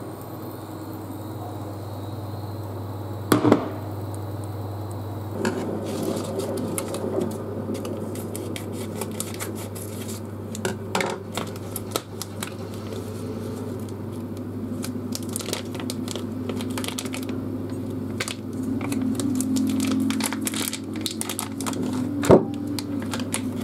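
Thin plastic bag crinkling and rustling in short crackles as it is peeled off a cooked corn cob, over a steady low hum. A single knock sounds about three seconds in, and a sharp click near the end.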